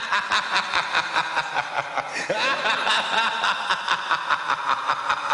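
A drawn-out laugh going on and on in quick even pulses of about six a second, with no music under it.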